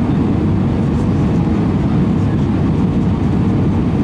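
Steady roar of engine and airflow noise inside an Airbus A320's cabin on final approach, with a faint steady hum above it.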